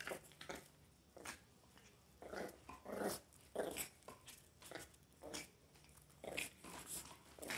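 Miniature pinscher playing with a soccer ball on concrete: a string of short, irregular sounds as the dog noses and paws the ball, mixed with the small dog's own play noises.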